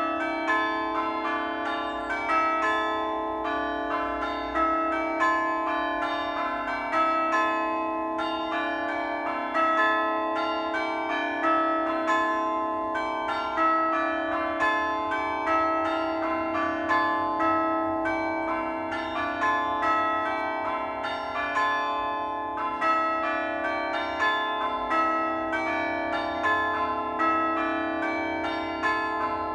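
A ring of church bells pealing, one bell struck after another in a steady, even stream of overlapping ringing tones, with a louder swell every couple of seconds.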